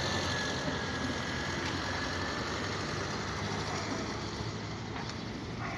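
Steady low rumble of motor-vehicle engine noise.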